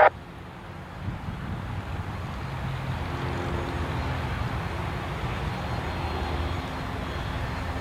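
Light propeller aircraft's piston engine running with a steady low drone and faint hum, slowly growing louder.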